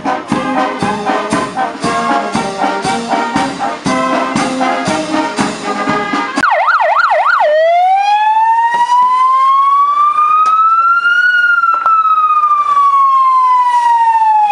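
Brass marching band playing with a steady drum beat, cut off about six seconds in by a fire engine's siren: a quick warbling yelp, then one long wail that rises slowly and falls again, with a short yelp at the end.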